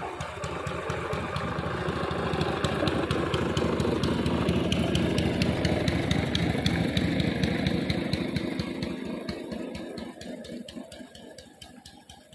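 Motor of a small wooden boat running under way as it passes close by, growing louder over the first few seconds and then fading away.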